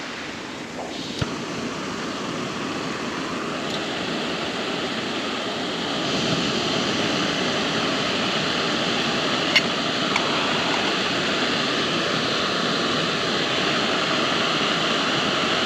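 Camping stove being lit for a brew: a click about a second in, then a steady burner hiss that steps up louder about six seconds in and holds. Running water behind it.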